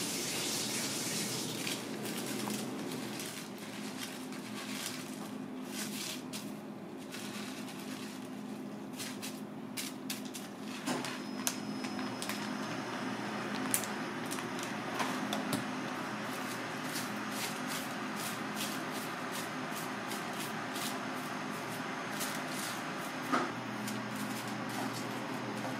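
Steady kitchen fan hum with scattered light clicks and rustles of aluminium foil and metal utensils being handled, and one sharp click near the end.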